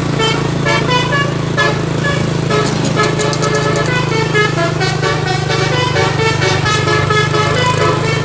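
Bus telolet musical air horn playing a quick tune of short notes at shifting pitches, several a second, over a steady low drone.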